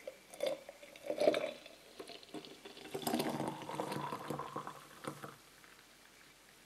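Thick green smoothie poured in a stream into a glass mason jar, splashing irregularly as the jar fills. The pour tails off about five seconds in.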